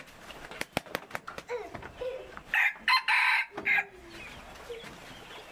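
A rooster crows once, loud, starting about two and a half seconds in and lasting over a second. A few scattered knocks and taps come before it.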